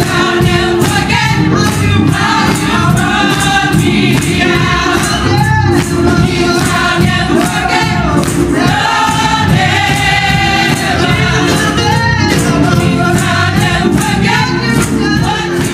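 Gospel choir singing with band accompaniment and a steady beat, stopping abruptly at the end.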